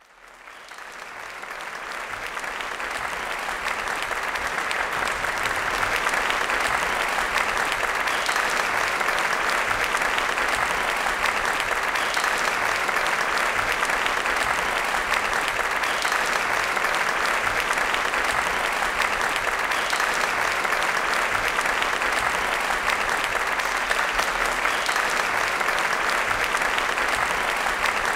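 Theatre audience applauding steadily, fading in from silence over the first few seconds.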